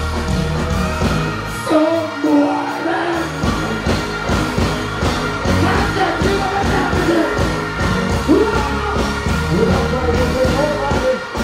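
Live dancehall performance through a stage sound system: a heavy bass riddim with a deejay's voice chanting and singing over it into the microphone. The bass drops out for a moment about two seconds in, then comes back.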